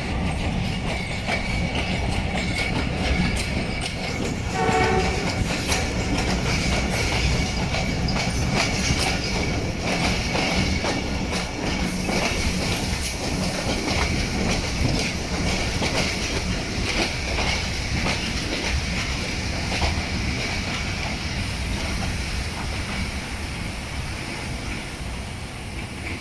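Passenger train running on jointed track: a steady deep rumble with the wheels clicking and clacking over the rail joints, and a thin steady whine above it.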